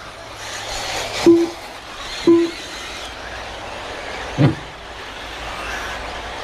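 Electric RC buggies running on the track: a steady hiss of motors and tyres. Two short beeps sound about a second apart in the first half.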